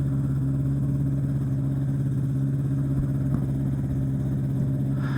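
Powered parachute engine idling steadily with its propeller turning, holding an even pitch while it warms up to temperature before takeoff.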